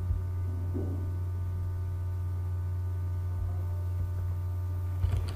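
Steady low electrical hum with a row of faint, higher steady tones above it, and no speech. A few soft taps near the end.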